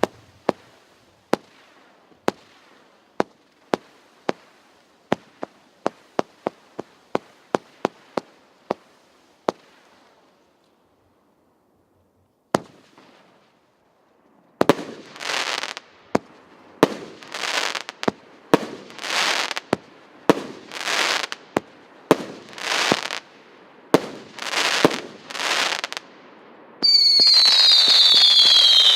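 A 120-shot fireworks battery (cake) firing. First comes a string of sharp single reports, one or two a second. After a short pause, shots follow each with a hissing crackle. Near the end come several shrill whistles falling in pitch, over a continuous crackle.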